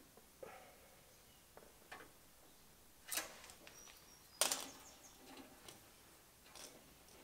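Light clicks and taps from a steel tape measure being handled against a metal radiator and front panel: a handful of short knocks, the two loudest about three and four and a half seconds in.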